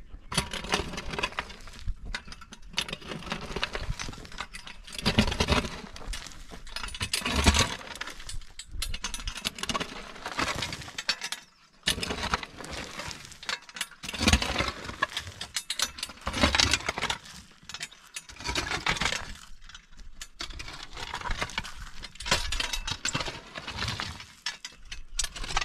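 Steel spade digging into rocky soil: the blade scrapes and crunches into the ground and loose stones clatter, stroke after stroke at an uneven pace.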